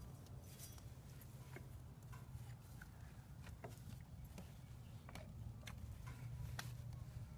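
Faint, irregular light clicks and taps of a rubber CVT drive belt and metal clutch and variator parts being handled and fitted by hand, over a steady low hum.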